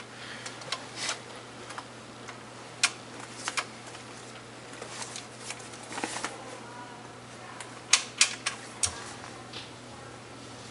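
Record player with a 45 rpm vinyl single before the music begins: scattered sharp clicks and pops, a cluster of louder ones near the end, over a steady low hum from the speakers.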